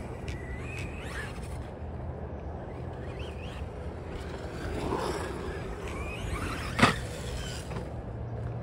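Remo 9EMU electric 1/10 short course RC truck driving over a rubber-granule surface, its motor whine rising and falling with throttle. A single sharp knock just before seven seconds in is the loudest sound.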